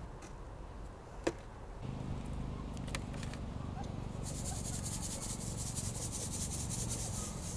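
Dry coriander seeds rustling and rattling in a metal wire-mesh sieve as it is shaken to sift out chaff. It is a steady rubbing noise that grows into a dense, fine hiss from about four seconds in. A single click comes about a second in.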